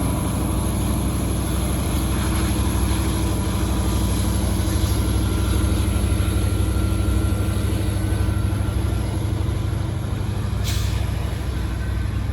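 Freight train passing, its distributed-power diesel locomotive's engine running steadily as the wheels roll through the crossover switches, with one sharp clack near the end.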